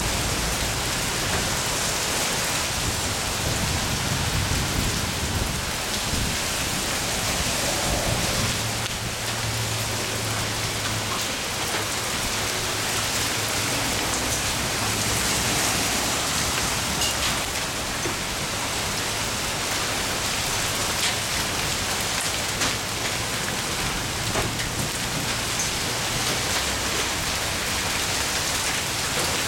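Heavy rain pouring steadily onto a concrete driveway, puddles and the street, a dense even hiss of rain with splashing.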